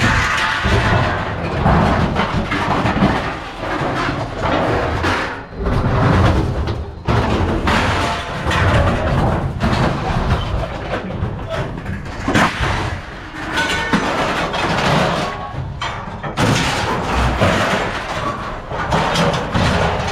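Background music mixed with repeated heavy thumps and bangs of scrap metal being handled.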